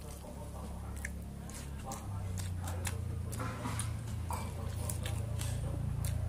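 Fingers squishing and mixing rice with daal on a steel plate, giving scattered short clicks and squelches. A steady low hum runs underneath and grows louder about two seconds in.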